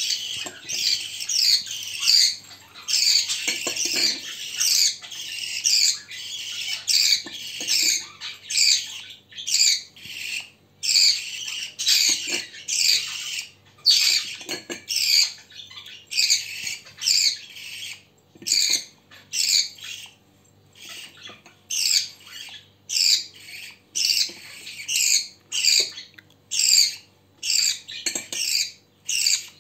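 Budgerigar chicks giving a steady run of short, harsh begging calls, about two a second, while being hand-fed from a spoon.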